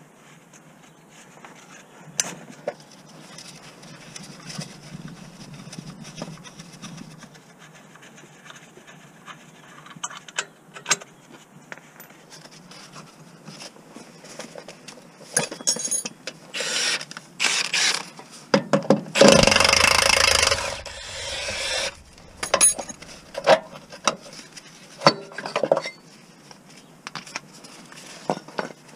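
Hand work on metal parts under a car: scattered rubbing, scraping and clicks of a hand tool and parts, growing busier partway through, with one loud scraping rustle of about two seconds about two-thirds of the way in, followed by several sharp clicks.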